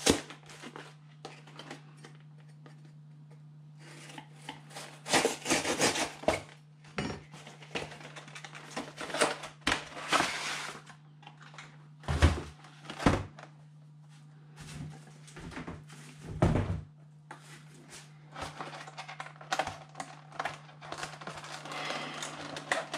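A cardboard card box being cut open with a knife and its clear plastic insert handled: bursts of scraping, rustling and crinkling of cardboard and plastic, with a few sharp knocks in the middle.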